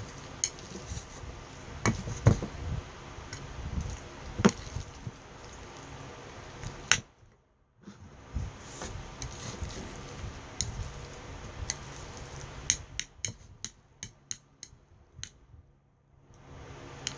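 Utensils clicking and knocking against dishes: scattered sharp clicks at irregular intervals, with a quick run of light clicks near the end.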